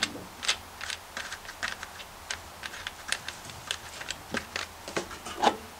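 Irregular light clicks and taps of a nut being turned off its stud by hand and a plastic air cleaner cover on a small Honda engine being handled, with a louder knock about five and a half seconds in.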